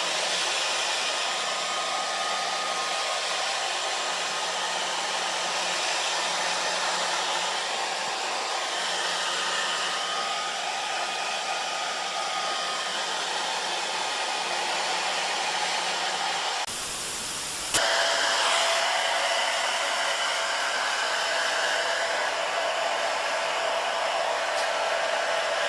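Electric hair dryer blowing with a steady rushing noise. About seventeen seconds in, the sound changes abruptly for a second. It then carries on with a steady whine over the airflow.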